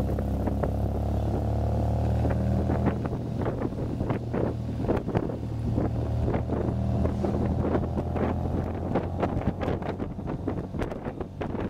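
MGA roadster's four-cylinder engine running steadily as the open car drives along, heard from inside the cockpit. Wind buffets the microphone in short gusts through most of the drive.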